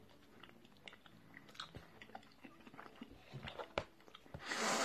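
A person chewing and biting something small and crunchy close to the microphone, with scattered small clicks and crackles. Near the end comes a louder rush of noise lasting under a second.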